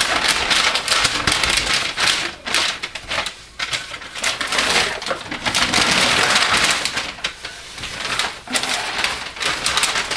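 Paper lining crinkling and rustling as it is peeled off a freshly unmolded loaf of cold process soap and crumpled, with brief lulls twice.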